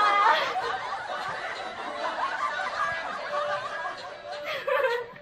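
A woman laughing, loudest in the first moment and then quieter, lighter laughter.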